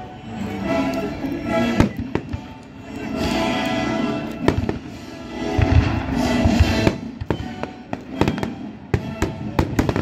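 Fireworks going off with sharp bangs and crackles, several in quick succession in the second half, over a live orchestra playing classical music.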